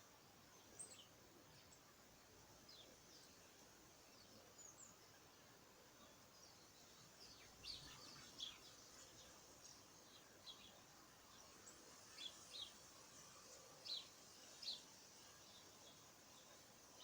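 Faint bird chirps: short, high calls scattered through, coming more often in the second half, over a steady background hiss.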